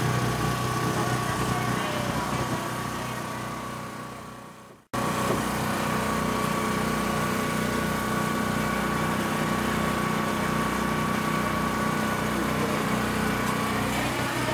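Steady mechanical drone of running machinery, with a few unchanging tones in it. It fades away to silence over the first five seconds, then cuts straight back in at the same level.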